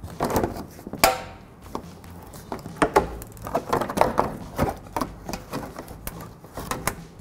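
Irregular clicks and plastic knocks as a body clip is pried out and the plastic undercarriage splash shield is worked loose and lowered, with one louder knock that rings briefly about a second in.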